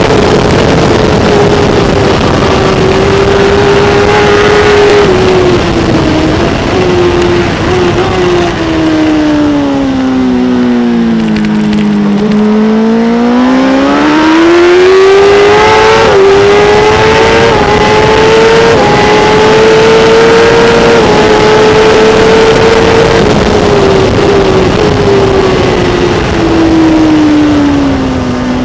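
Kawasaki ZX-10R superbike's inline-four engine at racing revs, heard onboard over wind noise. The engine note sags gradually to a low point about twelve seconds in, then climbs back up with a shift step a few seconds later. It holds high, then drops again near the end.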